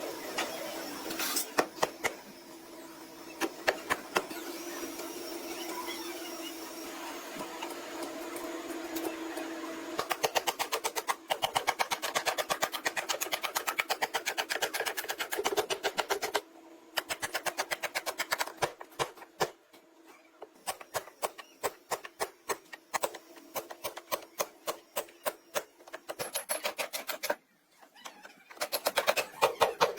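Rapid, even hammer strikes on car body metal, several a second, with two short breaks. Before them there is a steadier noisy hum.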